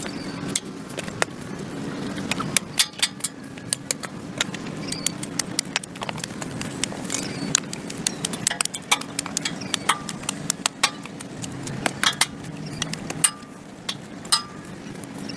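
A hand tool scraping packed dirt and grass off a concrete sidewalk: irregular scrapes and sharp clicks, several a second, over a steady low hum.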